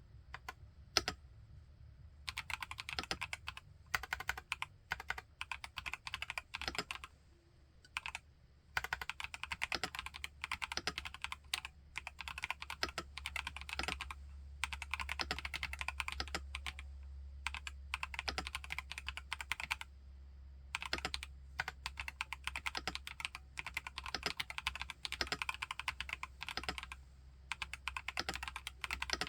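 Typing on an IQUNIX Q66 mechanical keyboard fitted with TTC Holy Panda tactile switches: fast, continuous runs of keystrokes, pausing briefly about seven seconds in and again about twenty seconds in.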